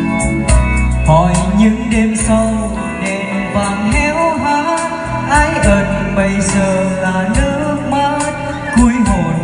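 A Vietnamese karaoke song played loud through a stage sound system, its backing track from a laptop, with a man singing into a wireless microphone over it. The speakers are a pair of 50 cm subwoofers and a pair of 40 cm Martin full-range cabinets, giving a heavy, steady bass under the melody.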